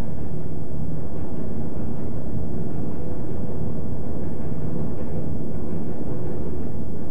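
A steady low rumble with a faint hum in it.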